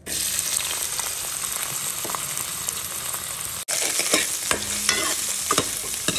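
Chopped onions hitting hot oil in an old kadhai and sizzling at once. In the second half a spatula stirs them, with sharp scrapes against the pan over the frying hiss.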